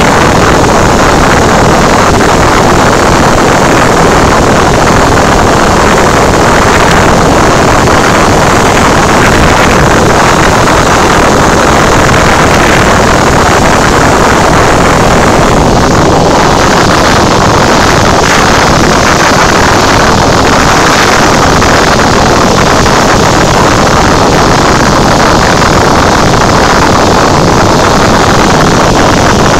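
Loud, steady drone of a Cessna 172's piston engine and propeller in flight, heard from inside the cabin.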